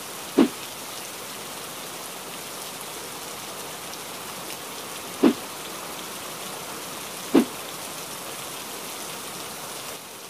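Steady rainfall hissing. Three louder single thuds stand out, near the start, about five seconds in and about two seconds after that.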